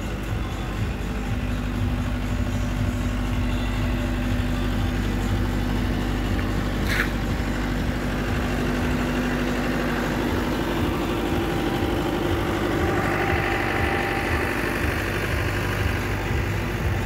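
An engine runs steadily in a low hum, most likely the diesel generator on a wheeled trolley that powers the decorative lighting. There is a single short click about seven seconds in.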